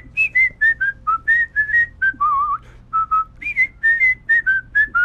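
A whistled tune, the show's intro jingle: a quick run of short, separate notes that hop up and down, with a wavering held note about halfway through.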